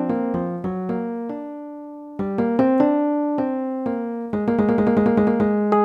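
Rhodes electric piano patch from an M-Audio Accent Module, played in a low octave: chords and short phrases whose notes ring and fade. About a second and a half in the playing pauses on one fading note, then picks up again and ends in quickly repeated chords.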